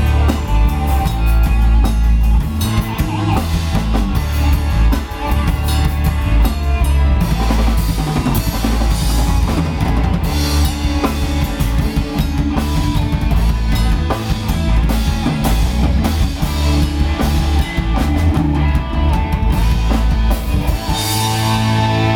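Instrumental break in a pop-rock song: a drum kit with bass drum, snare and rimshot playing a steady beat over bass and other instruments.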